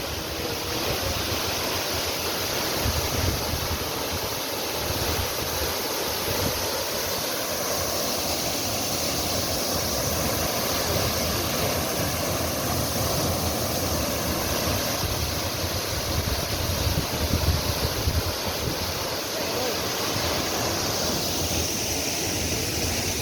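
Steady rush of a large waterfall, with uneven low gusts of wind buffeting the microphone.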